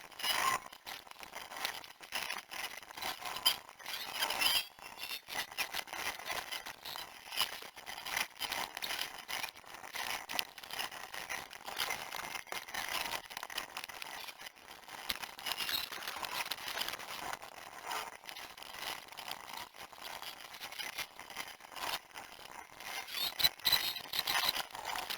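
Workshop sounds of an engine teardown played about 60 times too fast: a dense chatter of clicks, scrapes and squeaky chirps from tools and parts being handled.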